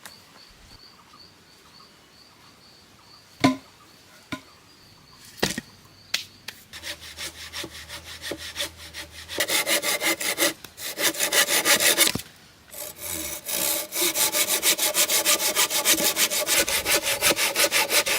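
Wood being worked with quick, even back-and-forth strokes, several a second, starting about six seconds in and getting louder a few seconds later, with a short break past the middle. A few single knocks come before the strokes begin.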